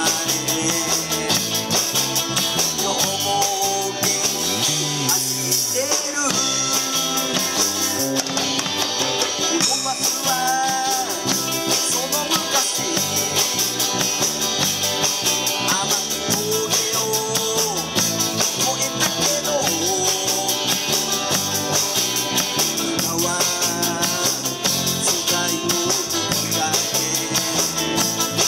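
Small rock band playing live: two electric guitars, an electric bass and a drum kit with steady cymbals, with a man singing over them.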